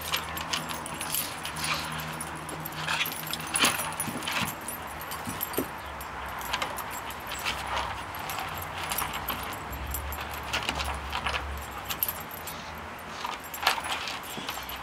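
Two dogs play-wrestling: their metal chain collars and tags jingle and rattle in irregular bursts as they tussle, with scuffling on wooden deck boards, over a steady low hum.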